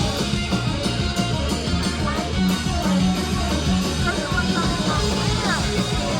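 Live rock band playing a loud, steady groove on guitar, bass and drum kit.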